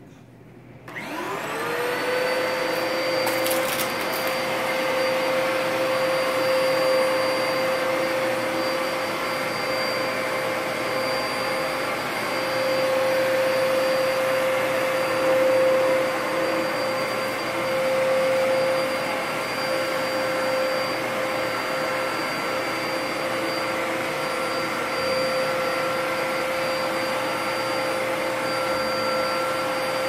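Dyson upright vacuum cleaner switched on: about a second in its motor spins up with a rising whine, then it runs steadily with a high motor hum over the rush of air.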